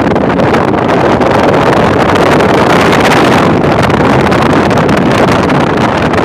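Wind buffeting the microphone: a loud, unbroken rushing noise that swells with more hiss about three seconds in.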